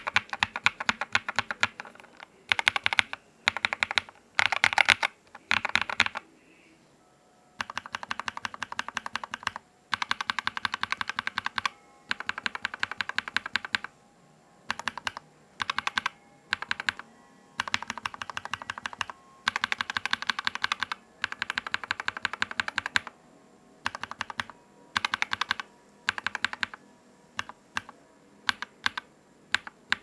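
Typing in quick runs on a Royal Kludge RK84 mechanical keyboard fitted with lubed Akko Radiant Red linear switches: rapid, subtle, clacky keystrokes, broken by a few short pauses.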